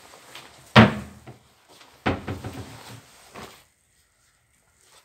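Two loud thumps about a second apart, each dying away quickly, followed by a lighter knock.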